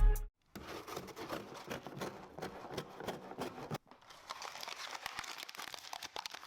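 Intro music cutting off at the start, then packaging crinkling and rustling faintly as it is handled, with a brief break partway through.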